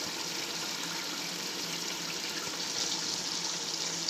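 Chicken and tomato masala cooking in a large aluminium pot on a gas stove: a steady, even hiss of sizzling liquid.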